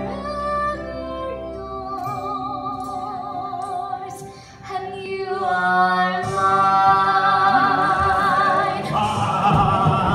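A young female voice singing long held notes with strong vibrato over musical accompaniment in a live musical-theatre performance, growing louder about six seconds in.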